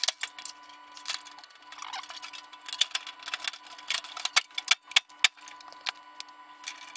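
Sheet-metal casing and front grille of a Rinnai Granada 25 gas heater being fitted back on by hand: irregular clicks, taps and light metallic knocks as the panels seat and are handled.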